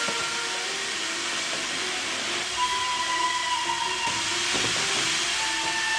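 Steady hiss of gas pouring from a pipe vent into a room.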